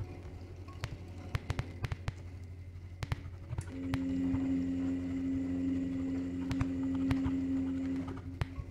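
Sparse improvised electroacoustic music: irregular dry clicks and taps over a steady low hum. A held, even tone enters about a third of the way in and stops shortly before the end.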